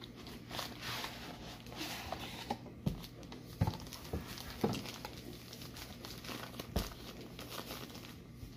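Clear plastic bag crinkling and rustling as it is taken from a cardboard box and handled, with a few short soft knocks among the rustle.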